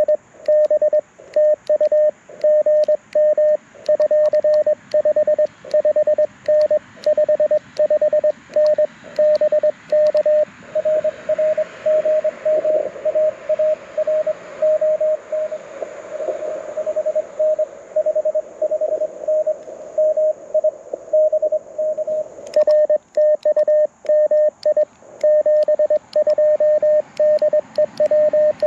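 Morse code (CW) from a Mountain Topper MTR4B V2 QRP transceiver played through a small Bluetooth speaker: a single steady tone keyed in dots and dashes. For the first ten seconds or so and again from about 22 seconds in, the tone is clean with faint clicks, the operator's own sending. In between, a received station's code comes through a hiss of band noise.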